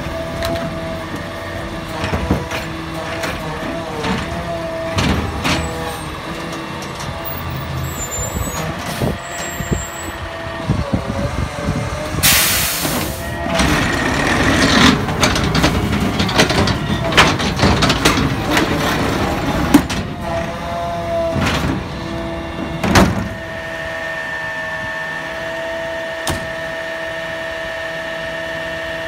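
Automated side-loader garbage truck running, with a steady whine over its engine and repeated knocks and clatters of the arm and cart. A loud air hiss comes about twelve seconds in and a single loud bang just after twenty seconds, after which the truck runs steadily.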